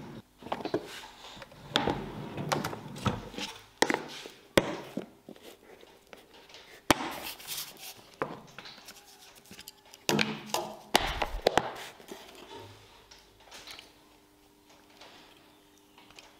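Handling sounds: a run of irregular knocks, clicks and rustles as a metal tool-cabinet drawer is pulled open and a plastic dial-caliper case is taken out and opened. The sounds grow quieter and sparser near the end.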